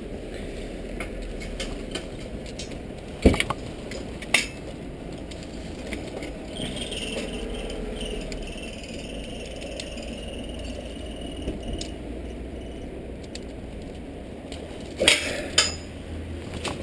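Handling clanks and rattles of a bicycle lock against a steel bike rack as a bike is locked up, with a few sharp metal knocks, two about three to four seconds in and a quick pair near the end, over steady background noise.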